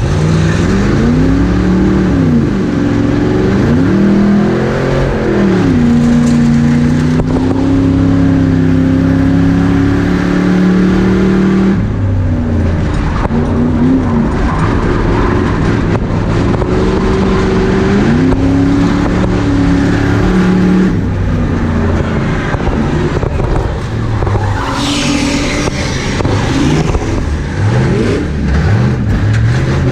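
A race car's engine heard from inside its own cabin, its pitch climbing and dropping as the revs rise and fall, held steady for several seconds at a time between dips. A brief high squeal near the end, tyres scrubbing on the track.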